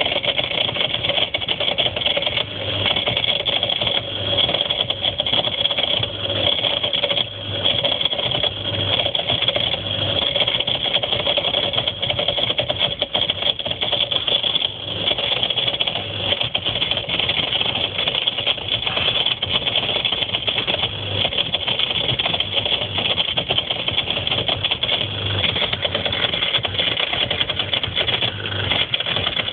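Whirlpool ADG 7540 dishwasher's pump rattling from underneath in a fast, continuous, stuttering clatter over a steady hum. It is a pump fault, cured by replacing the pump; the owner had taken it for something stuck in there.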